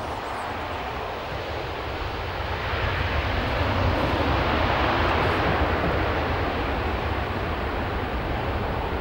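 Boeing 737's CFM56 jet engines on the landing rollout, a steady rushing roar that builds over the first few seconds and then slowly eases as the airliner slows down the runway.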